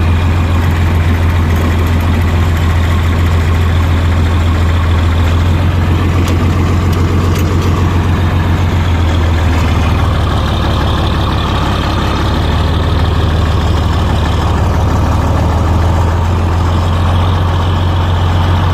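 John Deere 4020 tractor's six-cylinder engine running steadily under way, a loud, even low drone.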